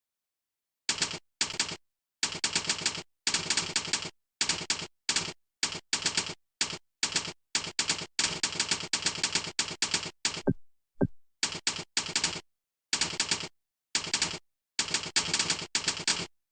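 Keyboard keystrokes clicking in quick runs of several strokes a second, broken by short pauses as the typist stops between words.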